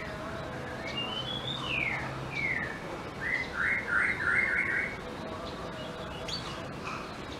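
Black-throated canary (blackthroat) singing: a few quick falling whistles, then a fast buzzy trill in four or five bursts, under a faint steady low hum.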